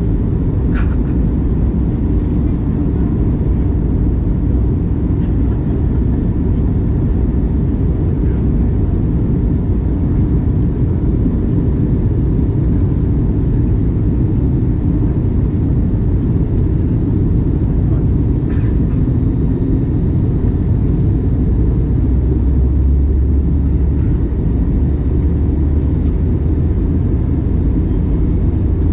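Steady low rumble of airflow and engines inside the cabin of an Airbus A321neo in flight on descent, with two faint clicks, one about a second in and one a little past the middle.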